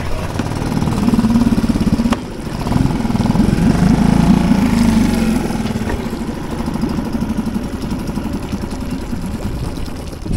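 Small outboard motor on an inflatable dinghy running just after a choke start, with a brief dip about two seconds in, then rising in speed and easing back. It is running on fuel starvation, the fuel switch having been left off, and it keeps dying when put in gear.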